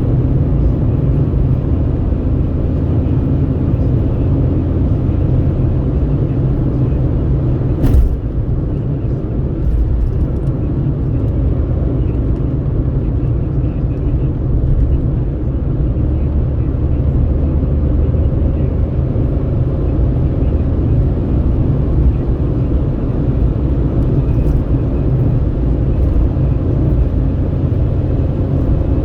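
Steady low road and engine rumble heard from inside a vehicle driving along a highway, with wind at the open window. A single sharp knock comes about eight seconds in.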